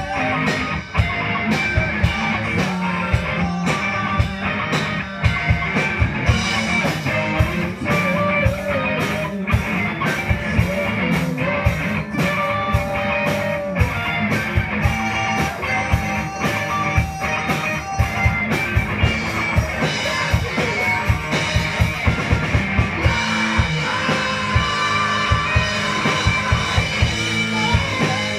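Live band playing: electric guitars and a drum kit keeping a steady beat, with singing.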